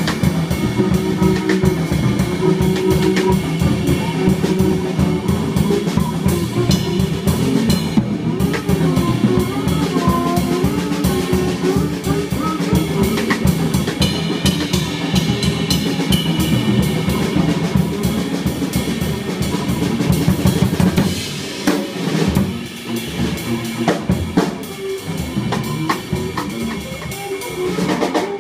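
Free jazz trio playing live: a drum kit played densely and rapidly, with a drifting pitched line from double bass and reed above it. The drumming thins out about two-thirds of the way through.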